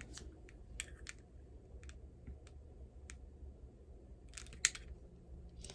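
A few faint, scattered clicks and light taps over a low steady hum, with one sharper click about four and a half seconds in.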